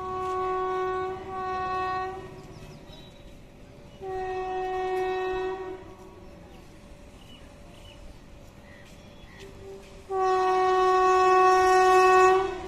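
WAP-5 electric locomotive's horn sounding four blasts of one steady tone as the train approaches: two short blasts close together, a longer one about four seconds in, and the longest and loudest near the end.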